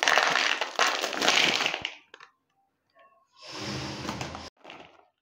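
A plastic Kurkure snack packet crinkling as the crunchy corn puffs pour out into a plastic bowl: a loud crackly rattle for about two seconds, then a shorter, fuller rustle about three and a half seconds in.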